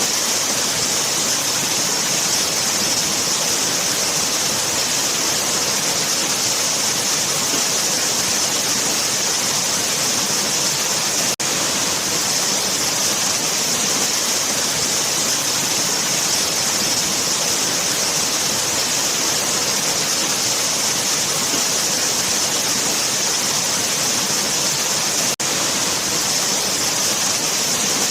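Waterfall: a steady, dense rush of falling water, strongest in the hiss. It breaks off for a split second twice.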